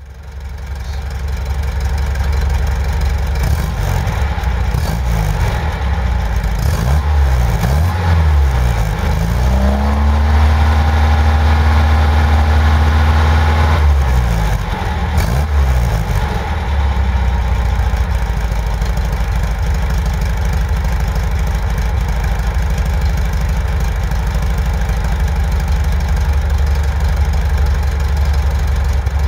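MGB engine heard at the exhaust tailpipe, idling on freshly tuned carburettors. About a fifth of the way in it is revved up and down several times, then held at a raised speed for a few seconds before dropping back to a steady idle.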